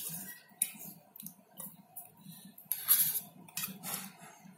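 Steel spoon scraping and clinking against a steel plate and bowl as chopped onion and tomato are pushed off into beaten eggs: a few irregular clinks and scrapes.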